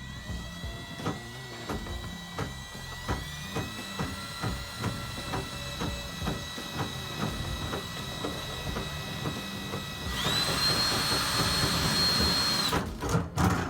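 Drill driving a RIDGID drain snake, its motor whining steadily as it spins the cable, with a regular knocking. The motor speeds up about three seconds in, runs faster and higher still about ten seconds in, then stops near the end.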